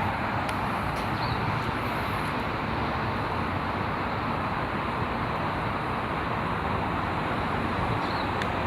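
Steady outdoor background noise with wind buffeting the microphone: a constant hiss and rumble with no distinct events, and a faint short high chirp twice.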